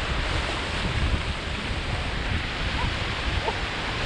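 Surf washing on the shore in strong wind, with wind buffeting the microphone as a steady low rumble under the hiss of the waves.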